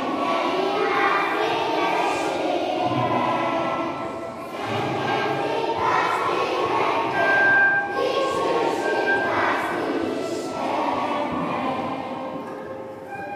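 A group of voices singing a song together, accompanied by acoustic guitars.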